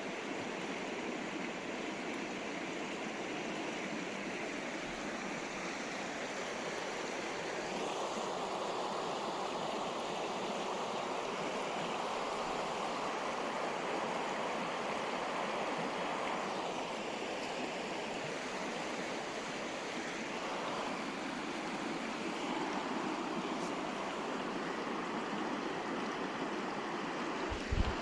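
River water flowing and rushing steadily, its texture shifting slowly. A brief low thump sounds near the end.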